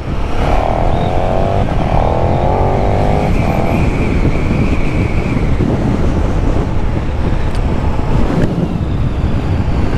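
KTM 1290 Super Duke R Evo's V-twin engine under acceleration: its note rises twice in quick succession with a brief break between, as it pulls through the gears. It then runs on steadily under a constant rush of wind on the microphone.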